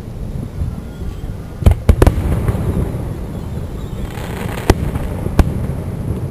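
Aerial fireworks shells bursting: a quick cluster of three sharp bangs about two seconds in, then two more single bangs near the end, over a constant low rumble.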